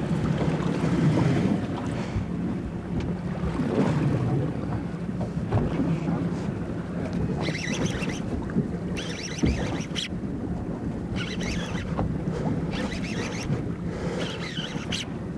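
Wind buffeting the microphone over water sloshing against a small fishing boat's hull, with a low steady hum underneath. A couple of sharp knocks stand out, the clearest near the middle.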